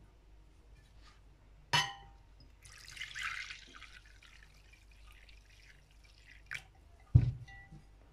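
Kitchen handling sounds as water is measured out: a ringing clink about two seconds in, a brief rush of poured water just after it, a small click, and then a heavier knock of a cup or container set down near the end.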